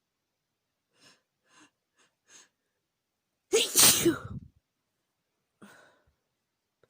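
Four short, faint breaths building up, then one loud human sneeze about three and a half seconds in, followed by a faint breath out. The sneeze is induced by chhikni, a herbal sneezing powder.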